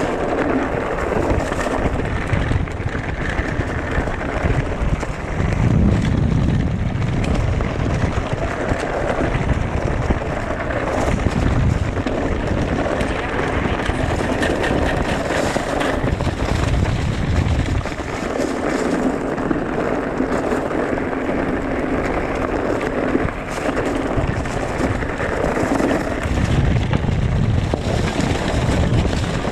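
Riding an electric mountain bike over a rough trail: tyre and rattle noise from the bike, with wind buffeting the microphone in gusts that swell and fade.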